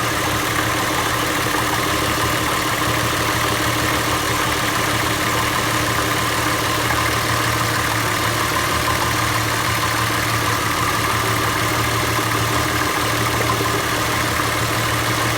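Volkswagen 12-valve VR6 engine idling steadily with no throttle, running an engine-flush additive through the old oil before it is drained.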